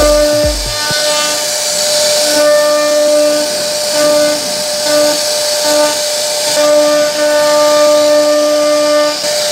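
CNC router spindle running with a steady high whine and the hiss of the bit cutting wood as it carves a relief pattern into a wooden door panel. A lower hum starts and stops repeatedly over the whine.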